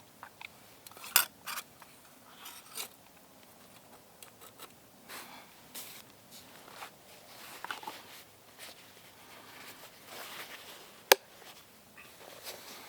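Scattered small clicks, scrapes and rustles of utensils and food being handled during a camp meal, with a sharp click about eleven seconds in.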